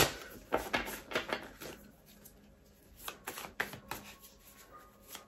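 A deck of cards being shuffled by hand: a run of quick, faint card clicks and flicks that thin out about two seconds in, with a few more a second later.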